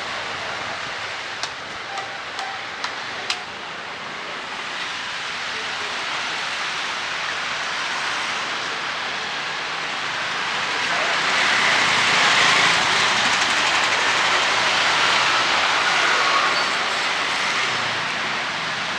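Wet street noise: a steady hiss without tone that swells louder about halfway through and eases off near the end. A few sharp clicks come in the first few seconds.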